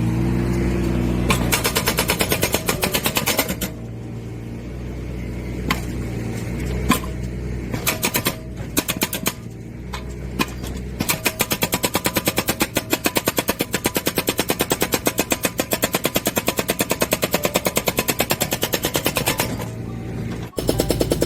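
Hydraulic breaker on a mini excavator hammering in rapid, evenly spaced blows over the running excavator engine. The hammering stops about four seconds in, leaving the engine and a few single knocks. It starts again about eleven seconds in and runs until just before the end.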